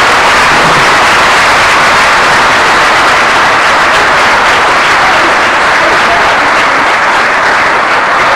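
A large audience applauding, loud and steady, easing slightly near the end.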